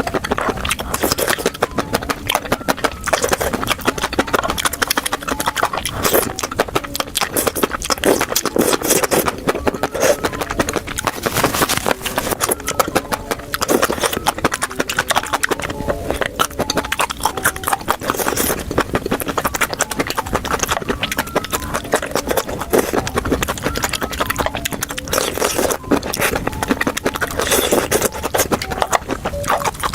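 Close-miked eating sounds: a person chewing, with dense rapid wet clicks and snaps from the mouth.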